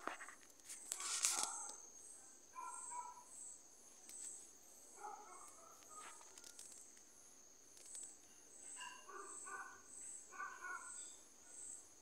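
Night insects chirping faintly: a steady high trill with a high chirp pulsing about twice a second. A brief rustle about a second in is the loudest moment.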